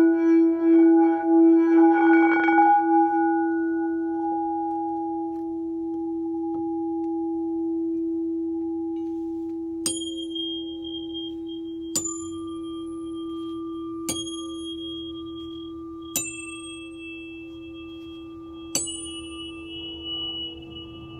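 Frosted crystal singing bowl ringing with one steady low tone that pulses at first and slowly fades. From about ten seconds in, a metal tuning fork is struck five times about two seconds apart, each sharp tap followed by a high ringing tone, at several pitches, over the bowl's hum.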